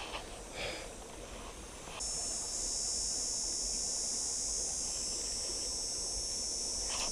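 A steady, high-pitched insect drone that starts abruptly about two seconds in and keeps going.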